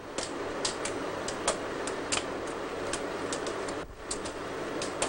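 Factory workroom ambience: a steady hum of machinery with irregular sharp clacks from small bench presses and tools being worked on an assembly line.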